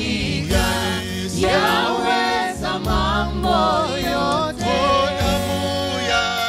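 Gospel praise song sung in Swahili: a male lead voice with backing singers, amplified through microphones. Keyboard and drums accompany them.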